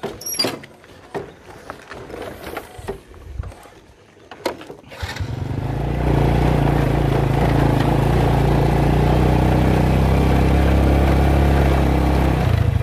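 Small underbone motorbike: a few knocks and clicks as it is handled, then about five seconds in the engine starts and settles into a steady run as the bike rides off.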